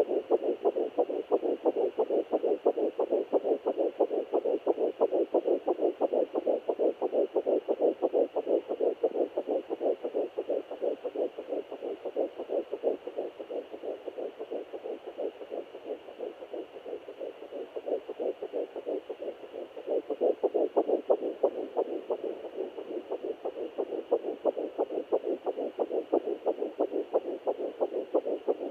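Handheld fetal doppler picking up a fetal heartbeat at 9 weeks 5 days of pregnancy: a fast, regular whooshing pulse over a faint steady hiss. The beat fades somewhat about halfway through, then comes back strongly.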